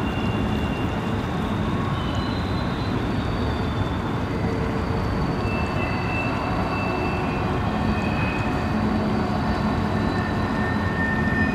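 Freight train rolling past: a steady rumble of wheels on rail, with thin high-pitched squeals that come and go, over the rush of shallow water.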